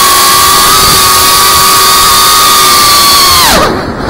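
FPV quadcopter's brushless motors and propellers whining steadily at high throttle, heard through the onboard camera. About three and a half seconds in, the throttle is cut as the quad rolls into a dive, so the whine falls sharply and quietens; it climbs back in pitch right at the end as the throttle comes up again.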